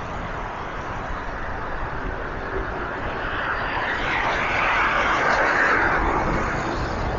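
Road traffic noise heard while riding along a city street, with a passing vehicle that swells up about halfway through and then fades.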